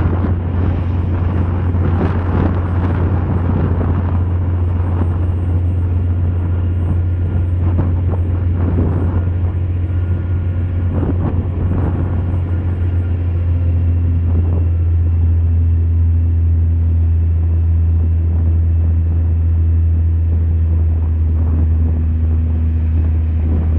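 Steady deep rumble of a ship's engine, with surges of wind and rushing water over it.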